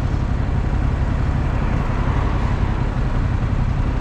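Motorcycle engine running steadily at low revs, a dense low rumble, as the bike slows to a crawl.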